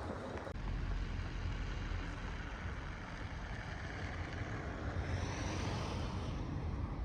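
Steady low outdoor rumble, with a higher hiss that swells a little about five seconds in.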